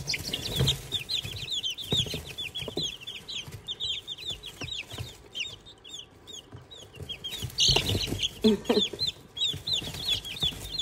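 Brood of young chicks peeping continuously: many quick, high peeps that slide downward in pitch, overlapping one another, louder for a moment about three quarters of the way through.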